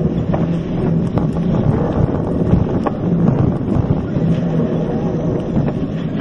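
Mountain bike riding along a dirt trail, heard from a handlebar-mounted camera: wind buffets the microphone over a steady rumble of tyres on the ground. Scattered short knocks and rattles come from the bike over bumps.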